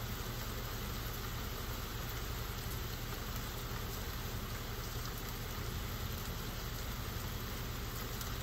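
Heavy rain falling steadily on pavement and leaves, an even hiss with a steady low rumble underneath.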